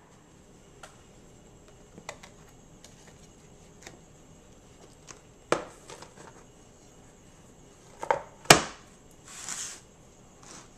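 Scattered knocks and clanks of a metal bundt cake pan being taken out of the oven and handled, with the loudest sharp knock about eight and a half seconds in and a short swish just after it.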